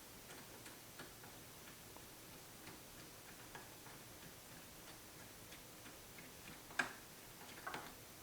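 Faint, scattered small clicks and ticks of hand tools on metal as the foot is taken off a mini lathe tailstock, with one sharper click just under seven seconds in and a few more soon after.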